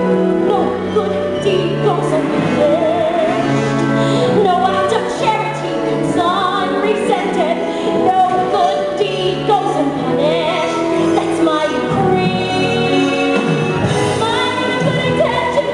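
A woman singing a musical-theatre song with strong vibrato over live instrumental accompaniment.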